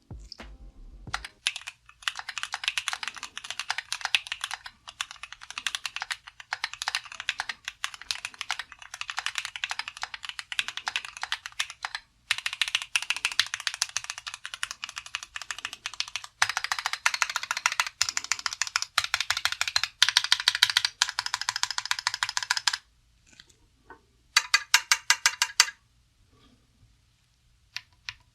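Fast typing on a Keychron Q8 Alice-layout mechanical keyboard with Gateron Pro Red linear switches: a dense run of keystrokes for about twenty seconds with two short breaks. Near the end comes a quick, even burst of about ten key presses.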